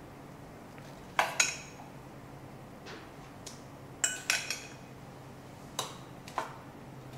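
A metal spoon scraping and clinking against a stainless steel mixing bowl while sliced apples are spooned out. The sharp clinks come in three short bunches: two about a second in, three around four seconds, and two more near six seconds.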